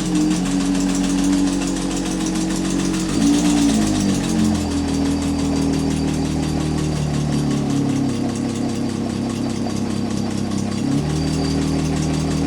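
Kenmore-by-White 117.959 sewing machine running with no fabric under the foot, a steady growly motor hum whose pitch shifts several times as the speed changes. The growl comes from the motor's 60-year-old rubber drive wheel, hardened as a rock.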